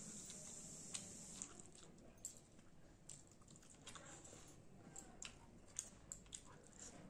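Quiet eating sounds: chewing with small wet mouth clicks, and fingers mixing rice and curry on a plate, in scattered short ticks at uneven intervals.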